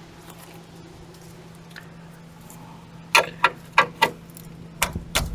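Two quick runs of sharp clicks and knocks, four about three seconds in and three more near the end, over a faint steady hum: a wrench working the new front shock absorber's mounting nuts during a final check that they are tight.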